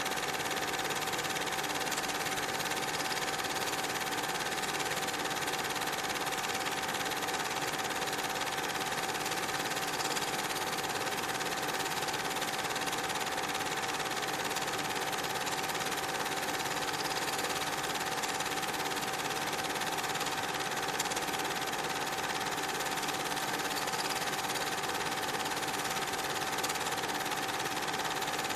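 A small machine running steadily, with a constant tone and even noise that do not change at all.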